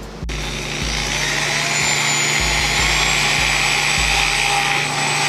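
Electric drill running steadily as it bores out a broken bolt in a car's wheel hub, its whine starting about a quarter second in and settling to a steady pitch.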